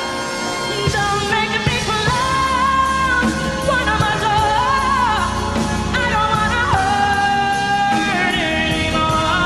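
Woman singing a pop song live with band and orchestra accompaniment, holding long notes with vibrato over a steady beat.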